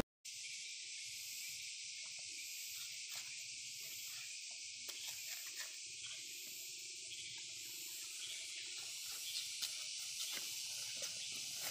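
Faint scrapes and small ticks of a knife cutting into the bark of a felled cinnamon trunk, under a steady high hiss of outdoor ambience.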